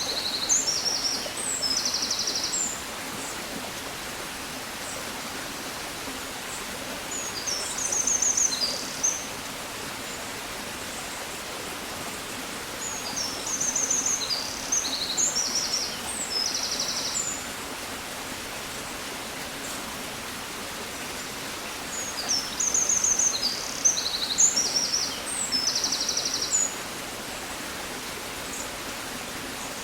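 A songbird singing in bouts of quick high chirps and trills, a few seconds long and repeating every several seconds, over a steady background hiss.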